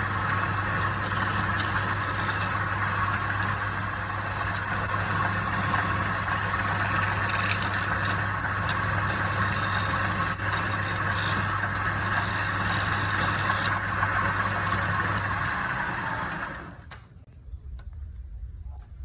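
Wood lathe's electric motor running steadily with a hum and whine, then switched off about sixteen seconds in and winding down quickly.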